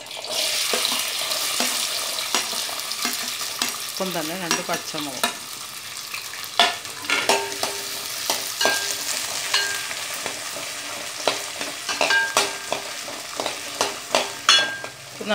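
Small shallots and green chillies sizzling in hot oil in an aluminium pan, the hiss strongest just after they go in. A slotted metal spatula scrapes and clicks against the pan as they are stirred.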